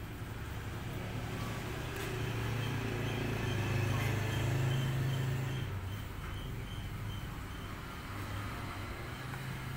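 Low engine hum of a passing motor vehicle, growing louder to a peak about four to five seconds in and then fading.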